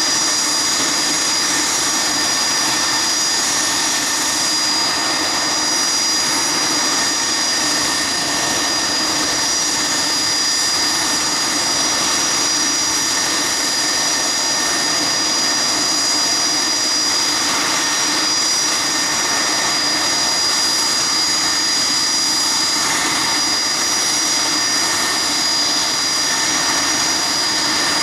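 Steady jet-turbine whine from a regional jet standing for de-icing, a thin high tone over a continuous hiss, unchanging throughout.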